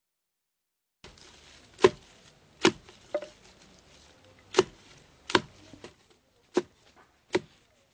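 Six sharp blows at an uneven pace, roughly a second apart, over faint background hiss.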